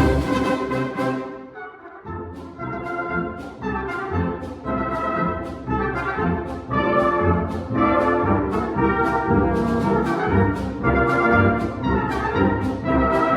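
Orchestral music led by brass, playing repeated chords in a steady rhythm of about two notes a second, after a brief softer moment near the start.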